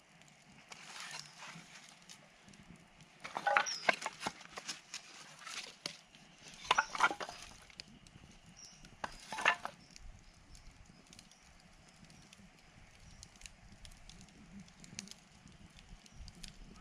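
Campfire wood crackling with scattered small pops, and three short bursts of dense crackling and snapping a few seconds apart.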